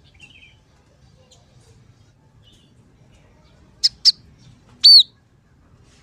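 Scaly-breasted munia calling: a faint chirp near the start, then two short, sharp chips about four seconds in, followed a second later by one loud, arched call.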